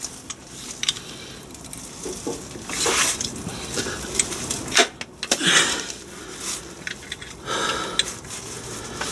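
A man breathing hard, three heavy exhalations a couple of seconds apart, from the effort of pushing a crankshaft oil seal housing onto its seat by hand. A few small clicks and knocks of hands on the metal come in between.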